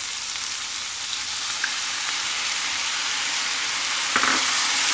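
Sweet corn kernels sizzling in hot oil in a metal wok with fish sauce freshly poured in: a steady frying hiss that slowly grows louder. About four seconds in, a short clatter as a spatula goes into the pan to stir.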